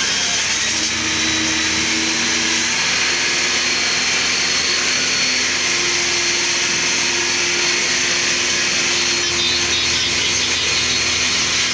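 Steady, loud hissing spray of firefighting water with an engine running underneath. The engine's hum steps up in pitch a couple of times.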